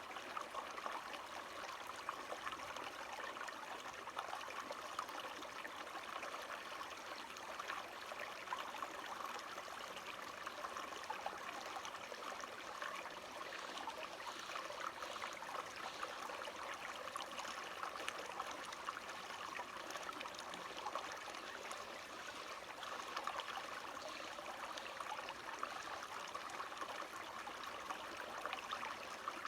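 Running water from a small stream, trickling and babbling steadily without a break.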